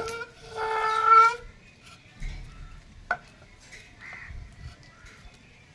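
A single drawn-out animal call held on one pitch for about a second, followed a couple of seconds later by a sharp click and a few light knocks.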